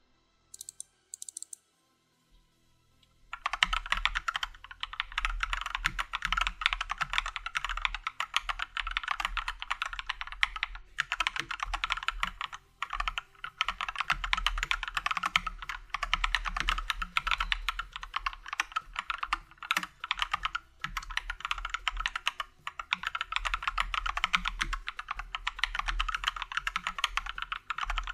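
Fast, continuous typing on an Akko 3087 RF World Tour Tokyo tenkeyless mechanical keyboard with Akko V3 switches, as a sound test. It starts about three seconds in and runs on with a few brief pauses.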